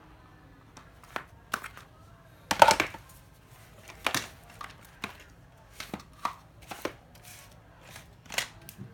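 Hard plastic knocks and clatter of cordless drills being handled and set down on a surface: a dozen or so irregular sharp knocks, the loudest about two and a half seconds in.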